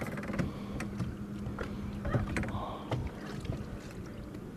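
Small waves lapping and knocking against a bass boat's hull at irregular intervals, over a steady low hum.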